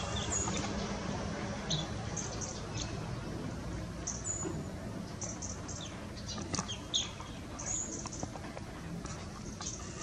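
Birds chirping in short, high calls scattered throughout, over a steady low background rumble.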